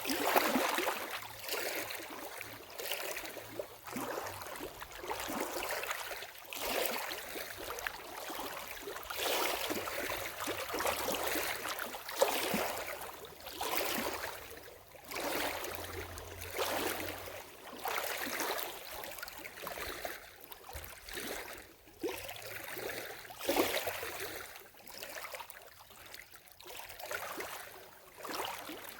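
Lake water lapping and splashing in small waves, coming in uneven surges every second or two.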